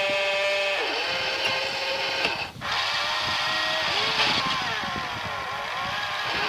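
Small electric drive motors and gearing of a 1:12 scale RC cable excavator whining. The pitch rises and falls as the motor speed changes, with a brief cut-out about two and a half seconds in.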